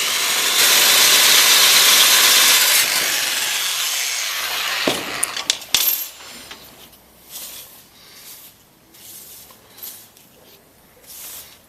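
Electromagnetic drill cutting through the tank wall, enlarging a 6 mm pilot hole to 10 mm: a steady, loud hissing cut that dies away about four and a half seconds in. A few sharp metallic clicks follow, then faint handling sounds.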